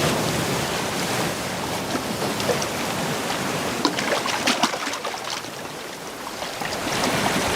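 Steady rush of water, with a few small splashes about four to five seconds in.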